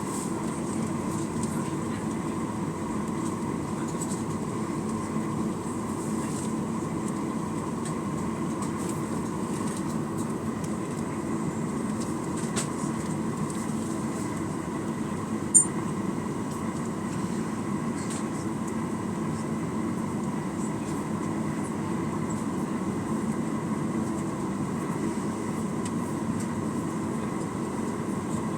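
Steady cabin drone and rumble of a Boeing 737-900ER taxiing, its two CFM56-7BE turbofans at low power, heard from a rear seat, with a steady whine near 1 kHz. A single sharp click about halfway through.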